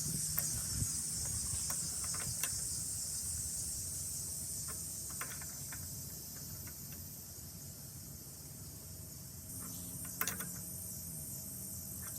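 Scattered faint clicks of tools and small metal pump parts being handled while a pressure washer pump is reassembled, over a steady high-pitched hum of insects that slowly fades.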